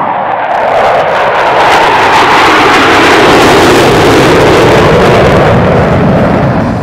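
Four Blue Angels F/A-18 Hornets in diamond formation passing overhead on full afterburner: a loud jet roar that falls in pitch as they go past.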